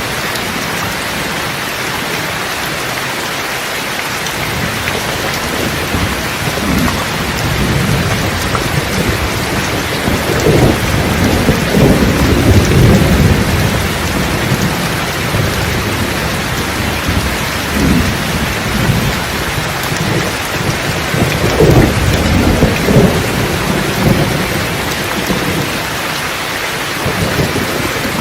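Steady rain with rolling thunder rumbling in and out, loudest about halfway through and again a little later.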